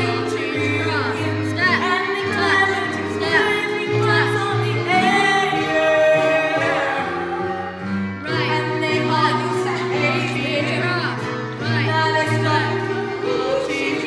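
Women's voices singing a show tune over a musical accompaniment with a steady bass line, with a brief dip about eight seconds in.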